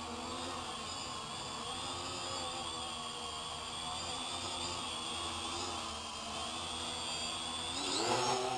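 X525 quadcopter's four electric motors and propellers whining as it hovers low, the pitch wavering with small throttle corrections. The whine rises sharply near the end as the throttle goes up.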